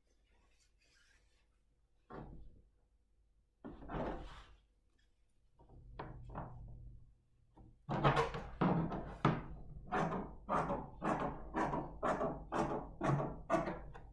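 Fabric scissors cutting, a steady run of crisp snips at about two a second through the second half. Before that, a few scattered knocks and rustles of fabric and scissors being handled on the table.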